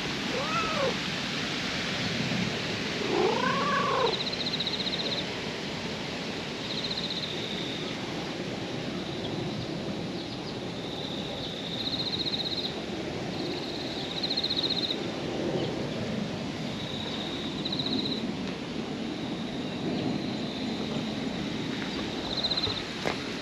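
White-and-orange cat meowing twice, a short call about half a second in and a longer, louder one around three seconds in, then purring as it is stroked. Short high pulsed chirps repeat every few seconds in the background.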